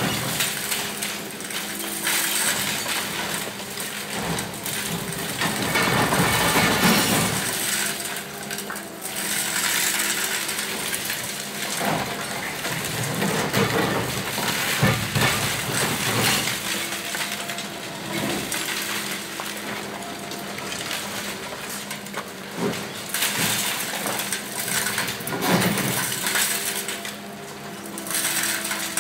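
Atlas Copco CC 1700 hydraulic combi cutter crushing reinforced concrete: irregular cracking and crunching of concrete, with clinking of falling debris, over a steady low machine hum.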